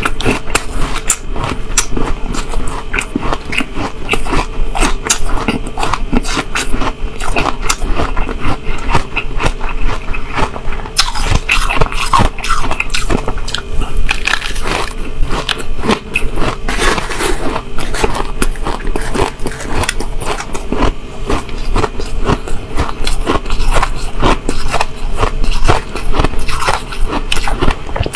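Shaved ice being bitten and crunched, close-miked, with dense crackling bites throughout. A metal spoon scrapes and scoops through the ice in a plastic tub between mouthfuls.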